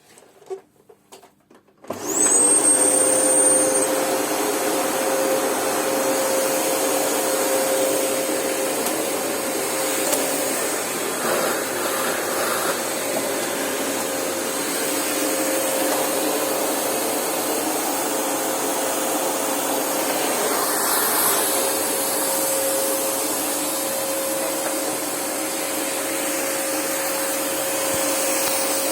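Unbranded FJ-188 600 W vacuum cleaner switching on about two seconds in and then running steadily, its motor holding one steady pitch. A high whistle comes in with it, strongest for the first couple of seconds and then faint: air leaking past a lid that doesn't close properly because the bag doesn't fit.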